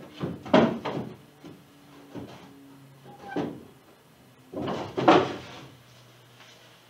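Wooden canoe seat frame knocking and clunking against the canoe's hull and seat brackets as it is set in place for a test fit. There are a few clusters of knocks, the loudest about half a second in and about five seconds in.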